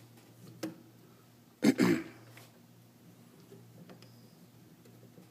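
Light clicks and taps of 3D-printed plastic parts and steel rods being handled during assembly. About a second and a half in there is one short, louder throat clearing.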